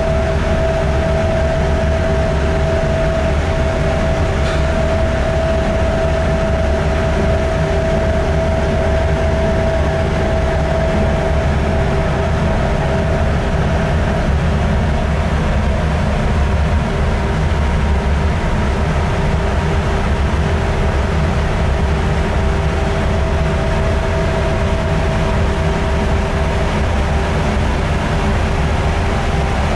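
Ship's engine-room machinery with the container ship's Hyundai diesel engine running: a loud, steady drone with a deep rumble. Two steady hums sit above it, and the higher one fades about halfway through.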